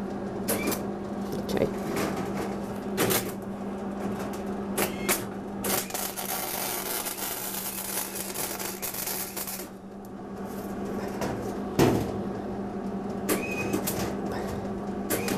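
Wire-fed (MIG) welder arc on steel: a few short crackling tacks, then a steady sizzling, crackling burn of about four seconds around the middle. A constant low hum runs underneath.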